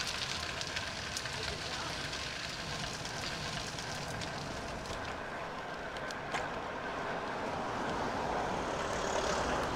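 Road bike rolling along a tarmac path, steady tyre and wind noise on the handlebar-mounted camera, with a few light clicks. Near the end a car passes on the road alongside and the noise swells.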